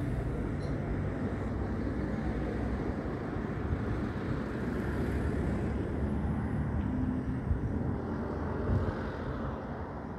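Steady outdoor background rumble and hiss with a faint low hum, even throughout with no distinct events.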